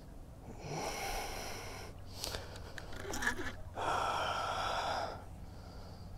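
An angler's heavy breathing while fighting a fish: two long, breathy exhalations about three seconds apart, with a few sharp clicks from the rod and reel between them.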